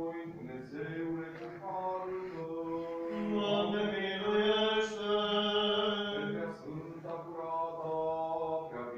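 Eastern Orthodox liturgical chant: slow singing on long held notes. It grows louder and higher for a few seconds in the middle, then settles back.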